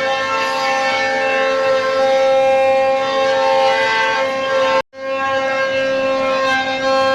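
CNC router spindle whining steadily at a fixed pitch as its bit mills solid maple. The sound cuts out abruptly for an instant just before five seconds in, then carries on.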